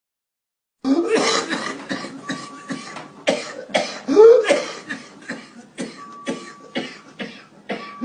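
A long fit of repeated coughing, short hard coughs following each other several times a second, starting about a second in.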